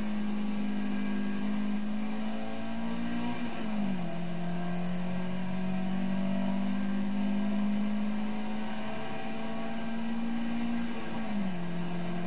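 Toyota 2TG 1600 twin-cam four-cylinder engine pulling hard, heard from inside the car. Its note climbs slowly, dips sharply about four seconds in, climbs again, and dips again near the end.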